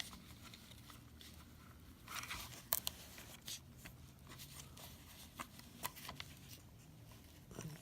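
Faint clicks and rustles of small plastic headset parts being handled and fitted together, with a short scraping rustle about two seconds in and a sharper click just after.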